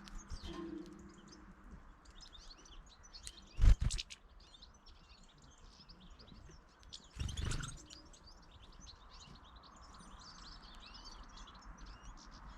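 Small birds chirping and twittering in quick, repeated calls. A loud thump comes about three and a half seconds in, and a second, softer thump a few seconds later.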